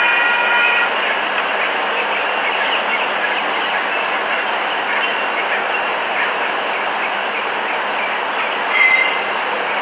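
Amtrak Pacific Surfliner passenger train rolling past: a steady rush of wheels on rail with a click about once a second as wheels cross rail joints. A ringing tone stops about a second in, and a brief wheel squeal comes near the end.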